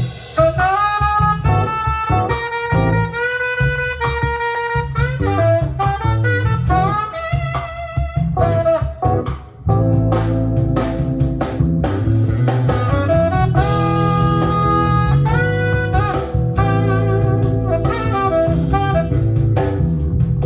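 Jazz-style music with a saxophone-like melody over guitar and bass, played back from cassette tape on a Sony TC-KA7ES deck. The level dips briefly about nine seconds in.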